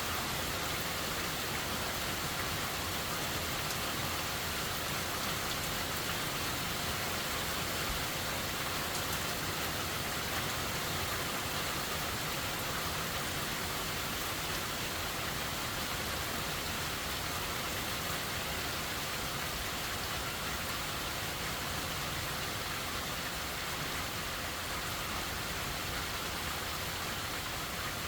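Steady heavy rain from Hurricane Helene falling and pattering on surfaces, an even hiss that holds at one level throughout.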